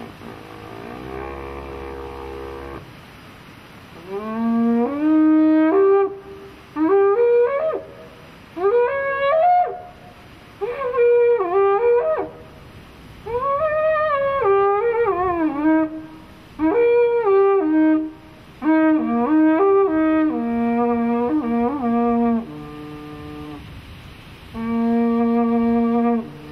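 A handmade carnyx blown in a series of loud, brassy blasts, each a second or two long, with notes that slide up and down. Near the end it settles into steadier held notes.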